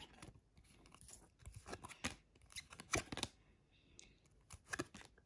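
Trading cards being slid one by one off the front of a hand-held stack, each giving a short, crisp swish or snap, several times over.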